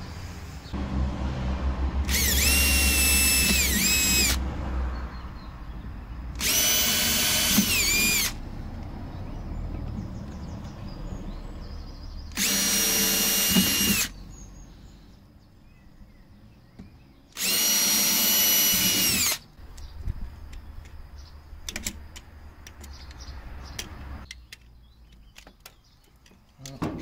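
Electric drill run in four short bursts of about two seconds each, its motor whine dropping in pitch as each burst stops: re-drilling the mounting holes in the plastic of the door's speaker spacer. Light clicks and handling noises fill the pauses between bursts.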